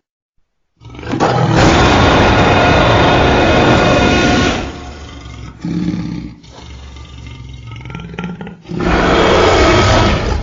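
Allosaurus creature roar sound effect: a long, loud roar starting about a second in, then a quieter rumbling growl, then a second loud roar near the end.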